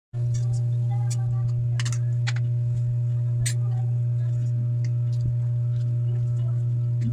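A loud, steady low hum on one unchanging pitch, with a few light clicks of chopsticks against a plastic bowl during eating.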